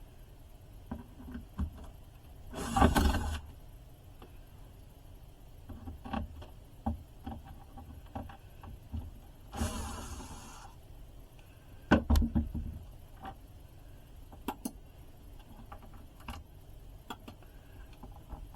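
A cordless drill-driver whirring briefly twice, backing out screws, among scattered clicks and knocks of screws and tools being handled, with one louder knock about 12 seconds in.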